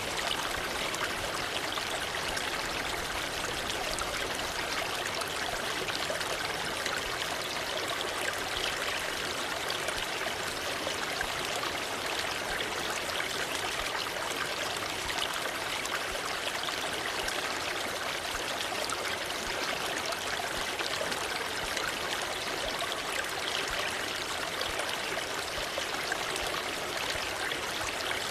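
Waterfall: a steady, even rush of falling water, unchanging throughout.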